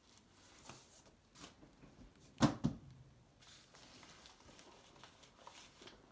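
Photos and albums being handled: paper rustling and small clicks, with two sharp knocks close together about two and a half seconds in.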